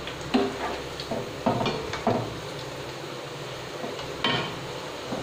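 Besan sev frying in hot oil in a kadhai with a steady sizzle. A perforated steel skimmer knocks against the pan several times, sharply, as the fried coil is turned and pressed.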